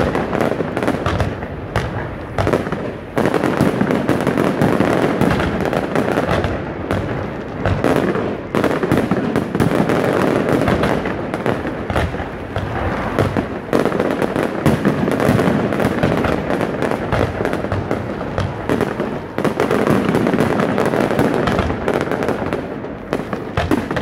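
Aerial fireworks shells bursting in a rapid, continuous barrage, with many bangs overlapping and crackling stars between them.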